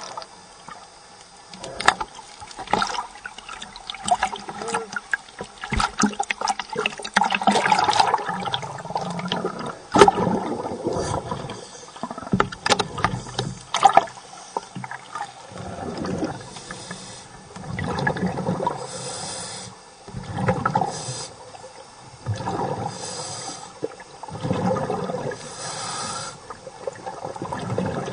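Scuba diver breathing underwater through a regulator: a hiss on each inhale alternating with a gurgling rush of exhaled bubbles, repeating every couple of seconds. Sharp clicks and knocks come through the first half.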